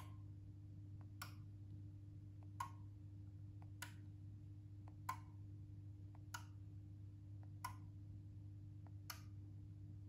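Relays inside a Meross smart power strip clicking as its outlets are switched on and off from the phone app: eight sharp clicks, about one every second and a quarter, with fainter ticks between them. A faint low hum runs underneath.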